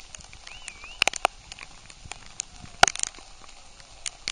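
Rain, with irregular sharp ticks of raindrops striking close to the microphone; the loudest comes a little under three seconds in. A short warbling whistle sounds about half a second in.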